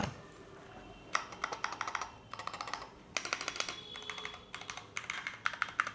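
Monsgeek FUN 60 Ultra TMR keyboard being typed on in quick runs of keystrokes, starting about a second in and broken by two short pauses.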